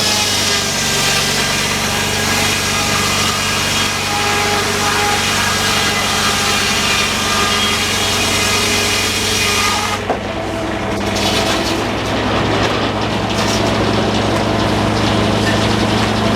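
Sawmill engine running steadily while the saw blade cuts through wood with a high rasping whine. The cutting sound stops about ten seconds in and the engine keeps running.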